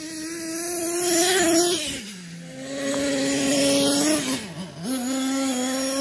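Small glow-fuel nitro two-stroke engine of a 1/8-scale Hot Bodies Lightning GT radio-controlled monster truck revving hard under throttle. The pitch climbs for about a second and a half, falls off sharply around two seconds in, then is held high again with a brief dip about four and a half seconds in.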